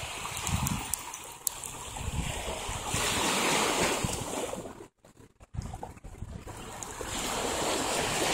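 Small waves washing onto a bay shoreline, swelling up twice, with wind on the microphone. The sound drops out for about half a second near the middle.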